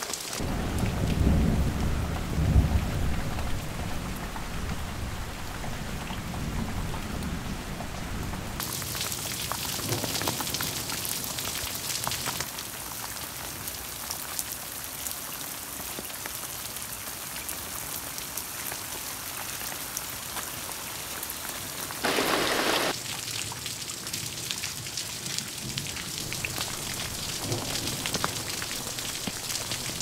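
Rain falling steadily, with a low rumble of thunder in the first few seconds. The sound shifts abruptly a few times.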